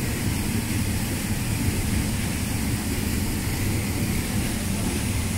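Steady rush of a river and waterfall, an even noise with no change.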